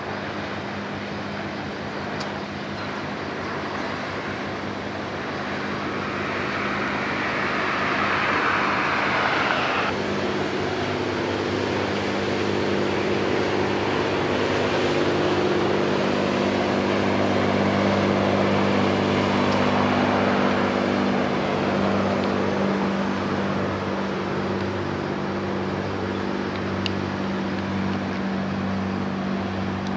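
Heavy-lift deck cargo ship passing close by: its engine gives a steady low drone that grows louder through the middle as the ship draws abreast, over the hiss of water at the hull. A rushing noise rises early on and cuts off suddenly about ten seconds in.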